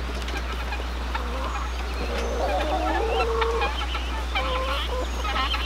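A flock of hens clucking and calling, with one longer wavering call in the middle and quicker short clucks near the end.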